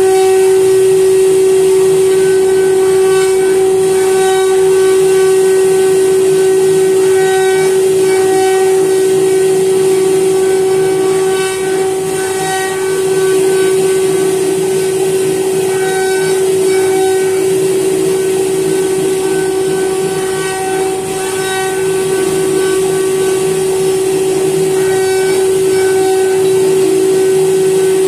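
CNC router spindle running with a steady high whine while its small bit carves a design into a wooden board, with a rough cutting noise underneath. Higher tones come and go every few seconds as the machine moves along the cut.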